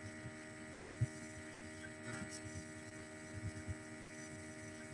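Faint steady electrical hum made of several fixed tones, with a few soft low thumps, the clearest about a second in.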